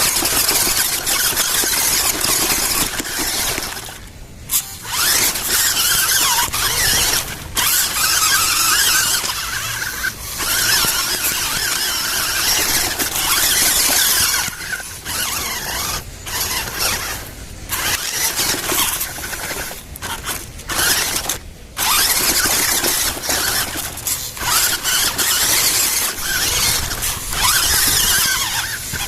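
Toy RC crawler's electric motor and gearbox whining as it drives over rough ground, stopping briefly every few seconds and starting again.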